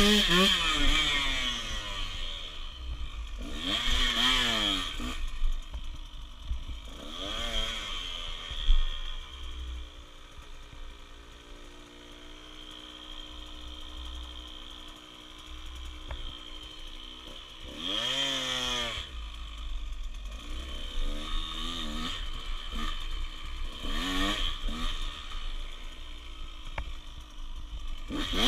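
Dirt bike engine revving up and falling back again and again as it is ridden, settling to a steadier, lower note for several seconds midway before rising again; a low rumble runs underneath.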